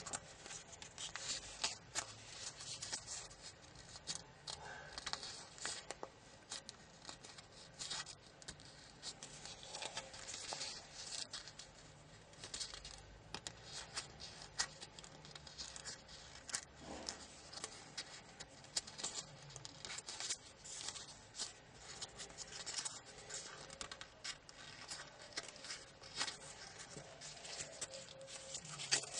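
Small sheet of origami paper being folded and creased by hand: an irregular run of faint crinkles, rustles and sharp little crackles as the paper is pressed and shaped into tight folds.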